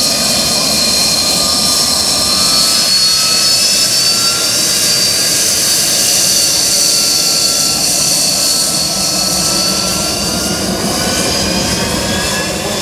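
Sea Harrier FA2's Rolls-Royce Pegasus jet engine running loud and steady, a high whine drifting slowly in pitch over a heavy rush of jet noise.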